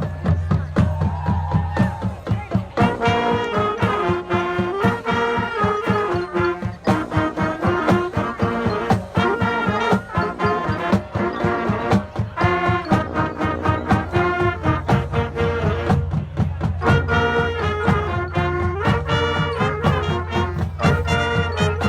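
High school marching band playing a brass-led tune, trumpets and trombones carrying the melody over a steady drum beat.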